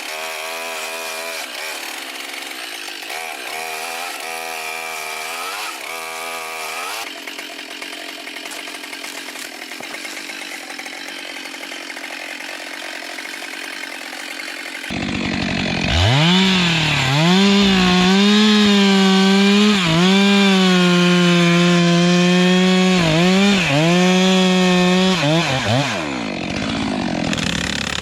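Chainsaw cutting through wood at high revs, its pitch dipping and recovering as the chain bites under load. It gets much louder about halfway through, sags briefly several times, then its revs fall away near the end.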